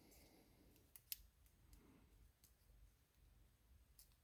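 Near silence with a few faint metallic clicks: a screwdriver and the small carburetor float and float needle being worked into place. Two close clicks come about a second in, and another near the end.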